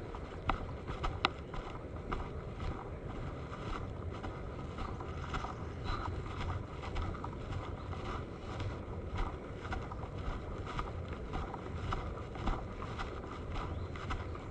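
Outdoor ambience with wind on the microphone, a steady rumbling hiss broken by scattered light clicks and knocks.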